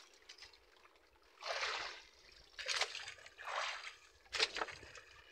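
Water splashing and sloshing in four short bursts, from a wet gill net being hauled and handled in a small boat.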